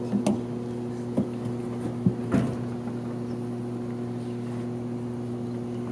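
Steady low electrical hum from the sound system, with a few short soft knocks in the first two and a half seconds.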